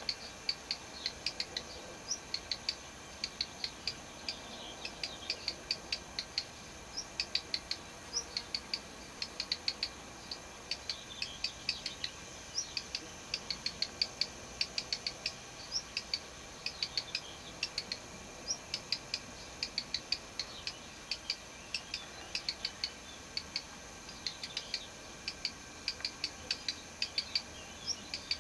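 Black redstart calling: dry ticking notes in quick clusters of two to five, with an occasional thin, short high note, repeated over and over without a break.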